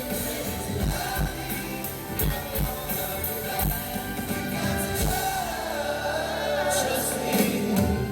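Live pop song with male singers over drums and bass; about six seconds in the drums drop out and a held chord and sung line close the song.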